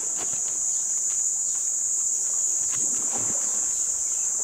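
Steady, high-pitched insect drone from the bush, with a few faint rustles and cracks underneath.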